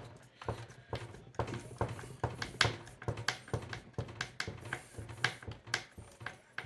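Irregular small metallic clicks and taps, several a second, of a screwdriver driving and seating a foot screw into the metal base of a Remington portable typewriter.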